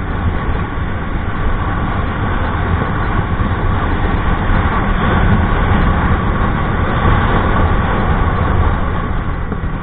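A TVS Ntorq 125 scooter's single-cylinder engine pulling hard while the scooter picks up speed from about 60 to 80 km/h, under steady wind rush on the microphone.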